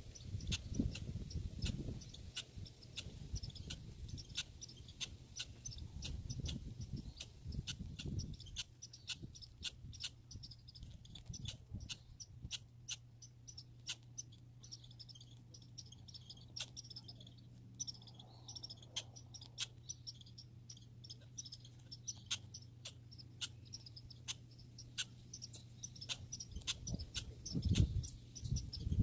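A squirrel chewing and gnawing, heard as a run of sharp, irregular clicks several times a second. A steady low hum comes in about a quarter of the way through, and there are low thuds near the start and again near the end.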